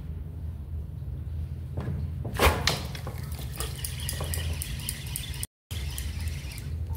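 Fishing rod and reel handled as the angler strikes and reels in: a sharp knock about two and a half seconds in, then a run of quick clicks and rattles, over a steady low rumble.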